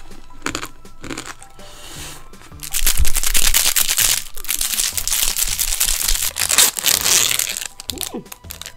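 A few crisp crunches of chewing a candy-coated fruit, then a plastic candy wrapper crinkling loudly for about five seconds as it is shaken and torn open, over background music.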